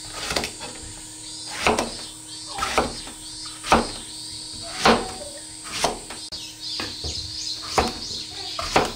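Kitchen knife cutting eggplant into chunks on a plastic cutting board: a knock of the blade through the eggplant onto the board roughly once a second, about eight strokes.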